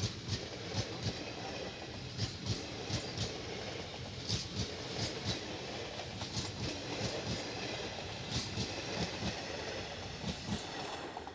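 Indian Railways passenger train running past at speed close by: a steady rumble of the coaches with the wheels clacking over the rail joints again and again.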